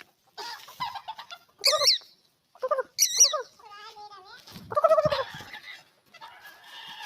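A bird calling: several short, wavering calls separated by pauses, the loudest two about a second apart near the start.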